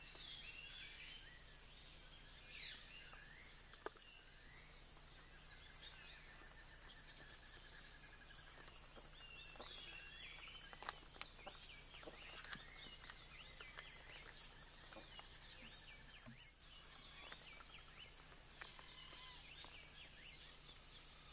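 Tropical forest ambience: a steady high-pitched insect drone, with many short, scattered bird chirps and calls and a few faint clicks.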